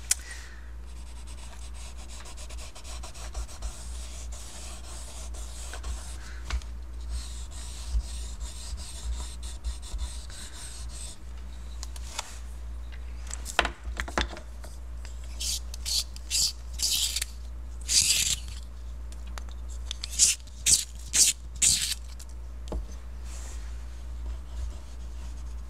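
Chunky woody colour pencil rubbed and scratched back and forth over painted paper. A steady soft rubbing for the first ten seconds or so, then a run of about a dozen short, louder scratchy strokes in the second half.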